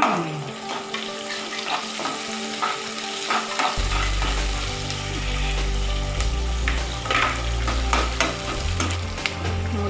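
Chopped onions sizzling in hot oil in a nonstick frying pan, stirred with a metal spatula that scrapes the pan in short, irregular strokes. A low hum comes in about four seconds in.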